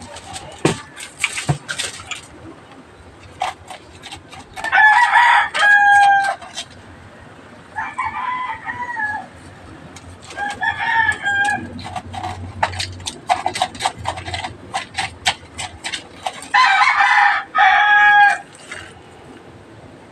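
Rooster crowing: a loud crow about five seconds in, two fainter crows around nine and eleven seconds, and another loud crow near the end. Under the crows runs a light crinkling and crackling of aluminium foil as salt is rubbed onto a whole tilapia.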